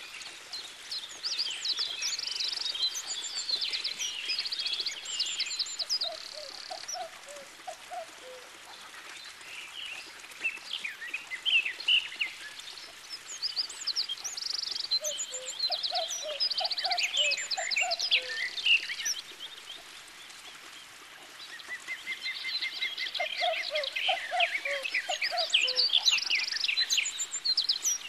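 Wild birds singing, with many quick high chirps and trills in three long bouts separated by quieter gaps, and short lower calls mixed in.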